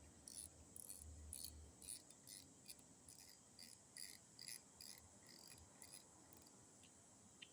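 Near silence with faint, evenly repeated high-pitched chirps, about two or three a second, that stop about six seconds in.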